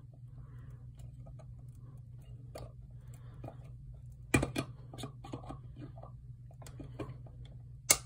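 Flat screwdriver blade of a Leatherman Curl multitool turning a screw into a wooden strip: scattered small clicks and ticks as the blade works in the screw slot and the tool is repositioned, with sharper clicks about four and a half seconds in and just before the end.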